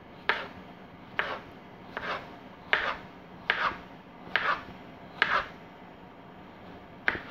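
Serrated knife slicing a yellow crookneck squash into rounds on a cutting board, each cut ending in a tap on the board. Seven slices come in a steady rhythm of a little more than one a second, then a short pause and one more cut near the end.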